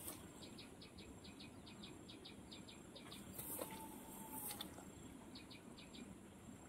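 Quiet riverside ambience: a faint steady rush of flowing water under rapid high chirping, about five chirps a second, in two runs, one early and one late. A brief whistled note sounds near the middle.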